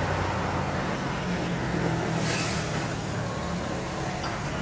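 Steady drone of a motor-vehicle engine running, with a short hiss of air about two seconds in.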